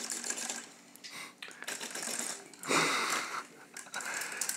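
Metal crutches clicking and rattling as they are handled and set down, with a louder burst of noise about three seconds in.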